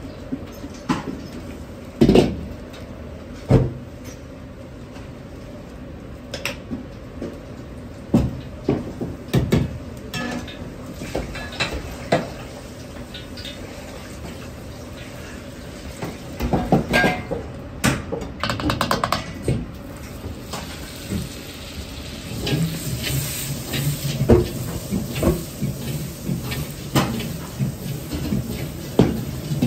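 Clanks and knocks of metal ladles and pots against woks, over the steady roar of a gas wok burner. About three quarters of the way in, butter goes into the hot carbon-steel wok and sizzles and crackles as it melts.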